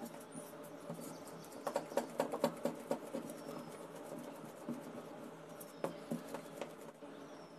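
Wooden rolling pin rolling out a round of dough on a smooth counter: faint light clicking and tapping, with flurries of quick clicks about two seconds in and again near six seconds.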